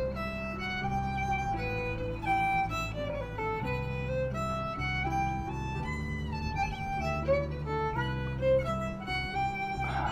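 Background music: a fiddle playing a tune of quick stepping notes over a low, steady accompaniment.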